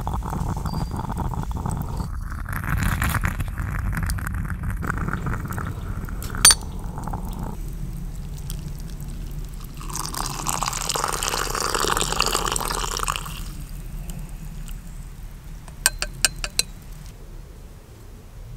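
Coffee poured from a stovetop moka pot into a wooden kuksa cup: a splashing stream about ten seconds in, lasting about three seconds. Before it, a steady hiss; near the end, a few sharp clicks.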